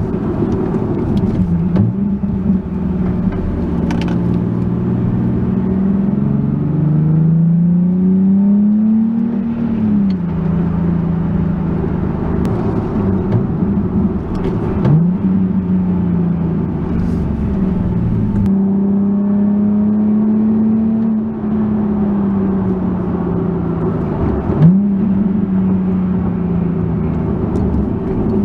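Nissan 370Z's 3.7-litre V6 with an Auto Dynasty cat-back exhaust, heard from inside the cabin while driving and working through the manual gearbox. The engine note climbs under acceleration and drops sharply at each gear change, several times.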